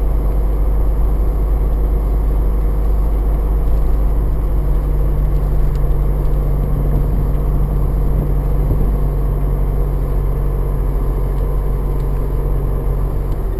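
Car interior: steady low drone of the engine and tyres on a paved road while driving at an even speed.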